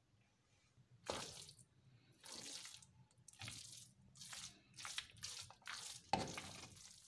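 Spoon scraping and stirring thick carrot halwa in a metal pan: a run of about eight short scraping strokes, starting about a second in.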